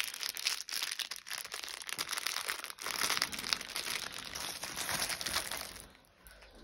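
Clear plastic packaging crinkling and rustling as a diamond painting kit's bagged drills and plastic-covered canvas are handled, with many small crackles; it dies down near the end.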